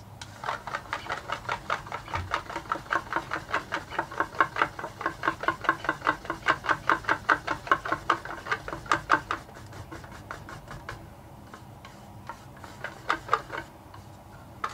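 A small stick stirring paint in a small cup, clicking against the sides quickly and evenly at about five a second for some nine seconds, then only a few scattered clicks. The paint is Lavender Frost, being mixed before it goes into the airbrush.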